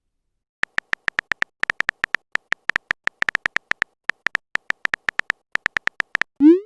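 Typing sound effect for chat messages: a rapid, uneven run of short identical high electronic beeps, then near the end a quick rising swoop like a message-sent tone.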